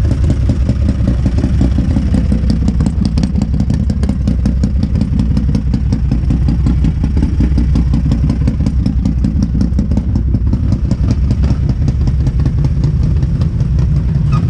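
ATV engine idling close by: a steady low running with a rapid, even firing patter.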